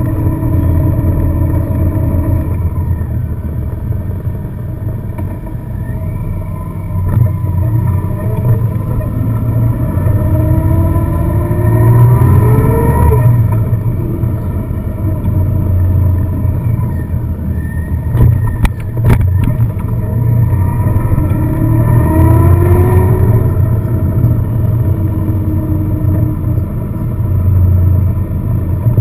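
Car engine and road noise of a car driving. Twice the engine note rises as the car accelerates, then drops back, about ten and about twenty seconds in. A few sharp knocks come a little past halfway.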